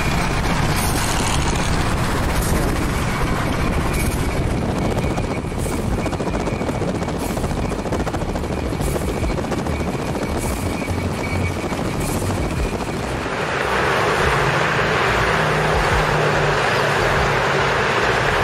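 Steady road and wind noise heard inside a car moving at freeway speed, with faint light clicks about every second and a half. About 13 seconds in it switches to a louder rushing noise of wind on the microphone.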